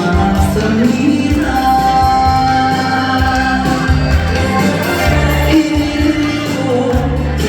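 A song played through a stage sound system: a backing track with a steady bass beat and long held melody notes, with singing over it.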